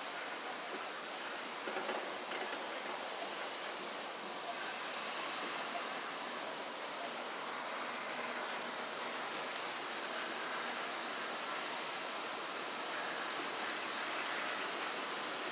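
Freight cars rolling slowly along the track, a steady noise of wheels on rail that grows slightly louder near the end.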